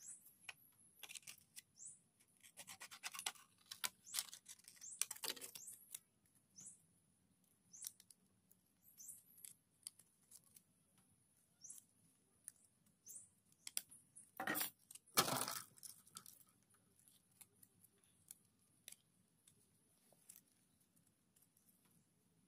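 Thin clear plastic bottle pieces crinkling and being snipped with small scissors: scattered clicks and crackles, with two louder crinkles about two-thirds of the way through.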